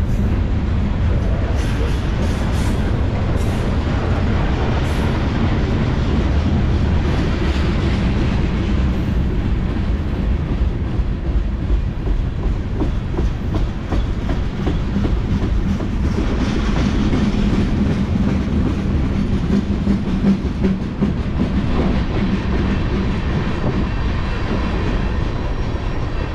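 Freight cars of a BNSF mixed freight train rolling past: centerbeam lumber cars, gondolas, a boxcar and tank cars, their steel wheels running steadily over the rails.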